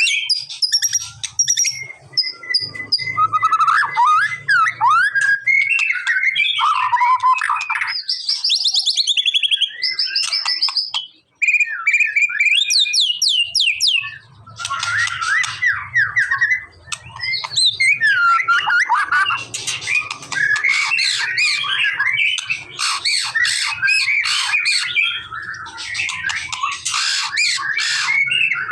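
White-rumped shama singing a long, varied song of clear whistles, rapid trills and harsh chattering phrases, with a short pause about eleven seconds in.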